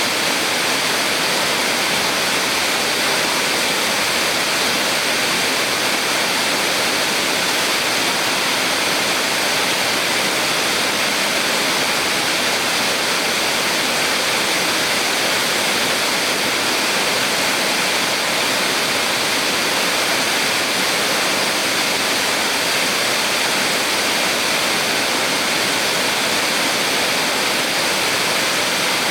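A small waterfall on a mountain stream, water pouring and splashing in a steady, unbroken rush, with most of its sound in the upper range.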